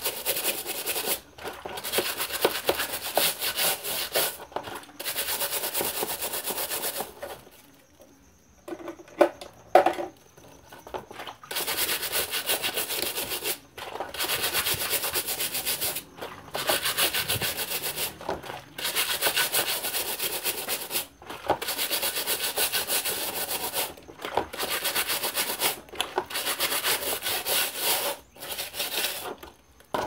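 Scrub brush scrubbing the grille of an Arno Turbo Silêncio fan in quick back-and-forth strokes, in bursts of a few seconds separated by short pauses. About eight seconds in the scrubbing stops for a few seconds, broken by a couple of knocks.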